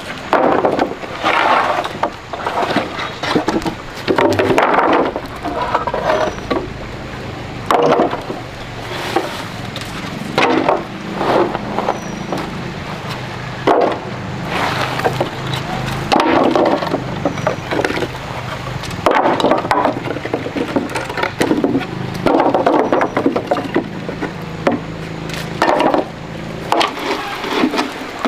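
Building work: irregular knocks, scrapes and clatter of wood and metal being handled, over a low steady hum.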